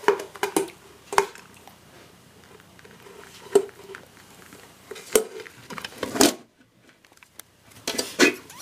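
Aluminium ring mold and ceramic plate being handled and turned over together: scattered sharp knocks and clinks of metal and china, with one longer rattle about six seconds in.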